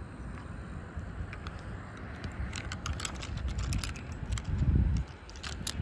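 Low wind rumble on the microphone, swelling into a gust about four and a half seconds in, with scattered light clicks and taps from handling a caught largemouth bass.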